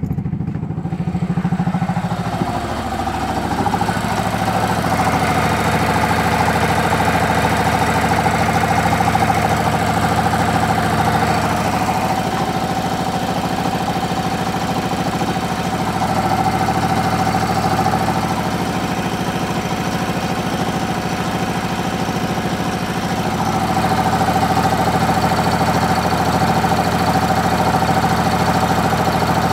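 Small single-cylinder engine of a homemade propane-fuelled generator running steadily, its exhaust, fed through a makeshift muffler, a little bit noisy; the pitch and level shift slightly a few times.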